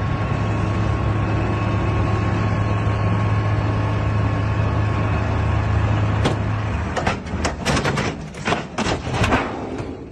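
Semi-truck's diesel engine running steadily while its raised tipper trailer unloads sand. About six seconds in the drone stops and gives way to a run of sharp, irregular bangs and knocks.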